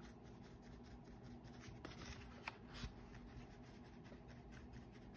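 Faint dabbing and brushing of a watercolour brush on cardstock paper, with one light tick about halfway through.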